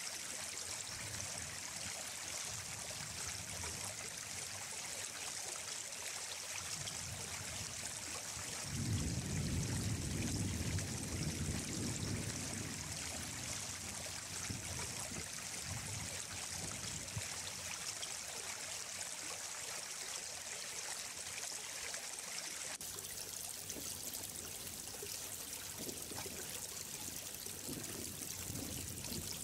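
Running water of a stream flowing steadily, an even rushing hiss, with a deeper low rumble swelling for about three seconds some nine seconds in.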